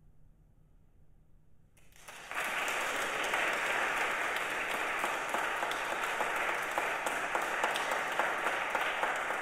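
Audience applause breaking out suddenly about two seconds in, after a short quiet pause, then continuing as steady clapping.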